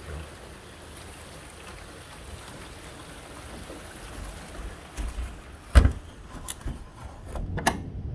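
Steady rain hiss, then thunder: a run of sharp cracks from about five seconds in, the loudest near six seconds, with a low rumble building near the end.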